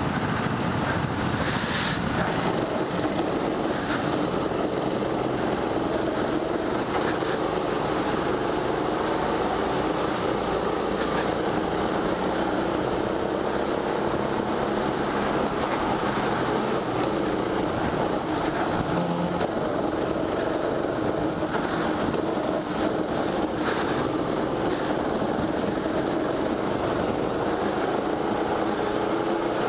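Rental go-kart's small petrol engine running at speed under the onboard camera, its pitch rising and falling gently with the throttle through the corners, over a steady hiss of noise.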